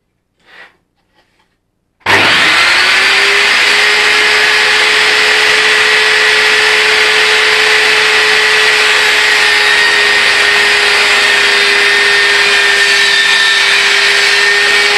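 Table saw switched on about two seconds in. The motor spins up within half a second to a steady whine and keeps running.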